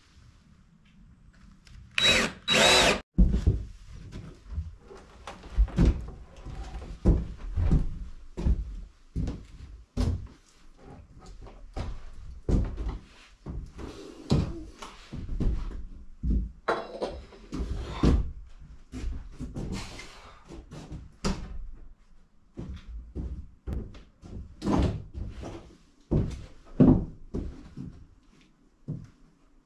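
Cordless drill driving screws into wooden boards, two loud runs about two seconds in. Many knocks and thumps of wood being handled and set in place follow.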